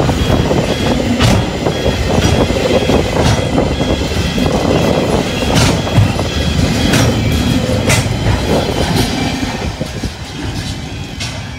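Container freight train wagons rolling past close by, a steady rumble with sharp clatters from the wheels over the rail joints. The sound thins and fades as the last wagons draw away near the end.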